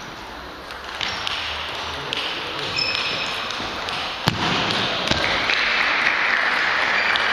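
Celluloid table tennis ball clicking off bats and the table in a rally, with scattered ball clicks from other tables in the hall; one sharp hit about four seconds in is the loudest. A steady hiss grows louder from about five seconds in.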